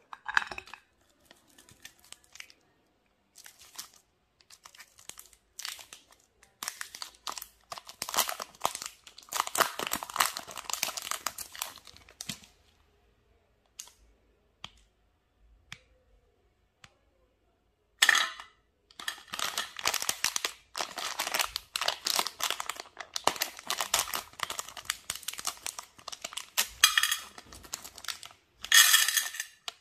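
Plastic chocolate wrappers crinkling and tearing as they are handled and opened, in crackly bursts with a quiet pause of a few seconds in the middle.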